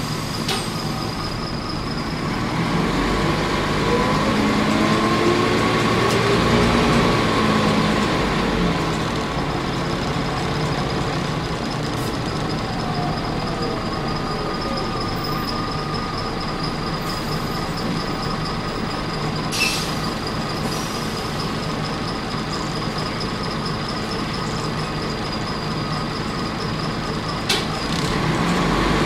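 Volvo B10L bus's six-cylinder turbo diesel and five-speed ZF gearbox, heard from inside the cabin. The engine rises in pitch as it accelerates in the first seconds, then runs steadily with a constant high whine, broken by a few short clicks or hisses. Near the end it revs up again.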